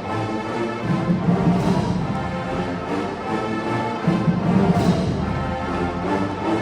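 Marching band playing: brass with drums, at full volume.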